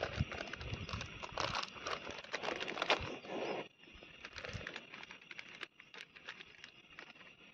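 Plastic food packets crinkling and rustling as they are handled and opened, over the crackle of liquid bubbling in a pan on a camping gas stove. The crinkling is loudest in the first three and a half seconds, then eases to a quieter crackle.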